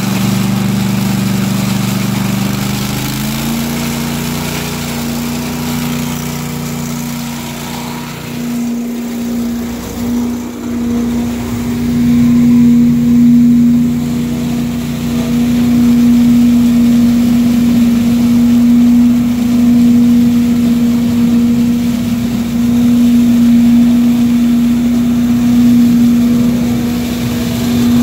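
Billy Goat debris loader's Briggs & Stratton Vanguard 18 hp V-twin engine and vacuum fan running at a steady high speed, the pitch stepping up about three seconds in. From about halfway on, leaves are sucked up through the intake hose, adding a louder rushing noise.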